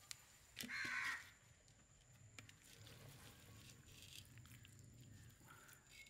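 Quiet outdoor ambience with one short, loud call about a second in, followed by a few faint clicks.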